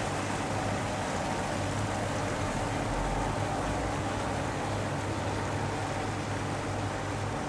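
Twin outboard motors of a small catamaran workboat running steadily under way, a constant low engine hum over an even hiss.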